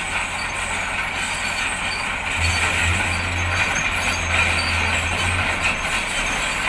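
Heavy diesel machinery running steadily under load: a wheel loader and an excavator moving a wrecked truck, with a low engine hum that grows louder for a few seconds in the middle.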